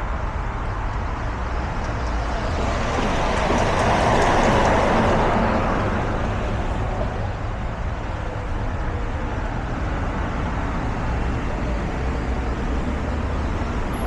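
Steady road traffic noise, with one vehicle passing close, loudest about four to five seconds in and then fading away.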